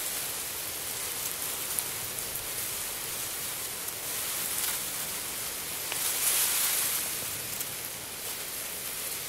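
Electroacoustic performance sound from loudspeakers: a steady, rain-like hiss of noise, swelling briefly about six seconds in.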